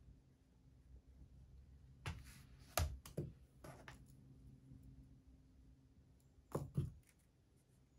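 A plastic scientific calculator and pens being set down and handled on a desk: a cluster of sharp clacks and knocks about two to four seconds in, and two more in quick succession about six and a half seconds in.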